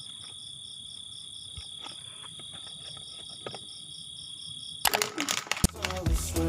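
Night insect chorus: a steady high trill with one chirp pulsing evenly over it, about three to four times a second. Near the end a clatter breaks in and music with a heavy bass starts.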